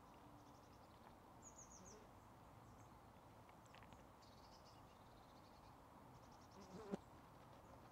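Near silence with faint outdoor hiss and a few short trains of faint, high-pitched chirps from small animals in the grass, and one brief soft sound about seven seconds in.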